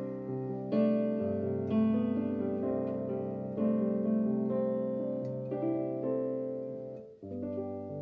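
Digital piano playing slow chords, a new chord struck about once a second and each left to fade. There is a brief break in the sound about seven seconds in before the next chord.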